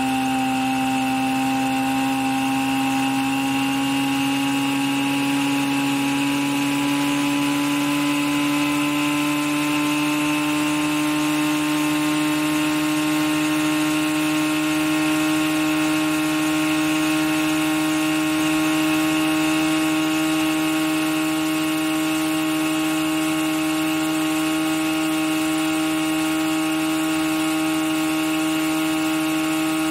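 Boat engine running at high revs, its pitch rising slowly over the first dozen seconds and then holding steady.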